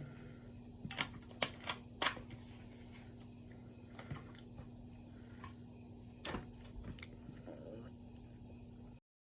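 A handful of sharp clicks and taps, several close together about a second in and a few more later, over a steady low electrical hum; the sound cuts off abruptly near the end.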